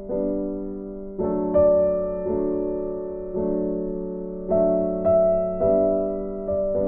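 Slow background piano music: chords struck about once a second, each note ringing on and fading away.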